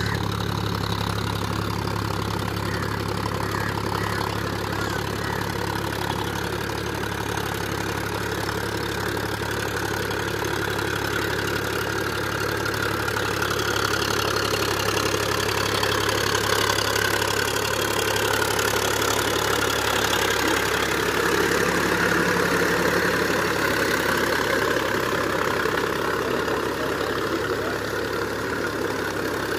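Powertrac Euro 50 tractor's diesel engine running steadily at about 1500 rpm in low third gear, pulling a 6-foot rotavator that churns through flooded paddy mud. It gets a little louder in the middle as the tractor passes close by.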